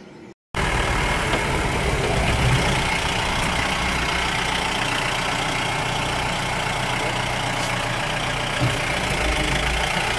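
Vehicle engine idling steadily at close range. It starts abruptly after about half a second of silence.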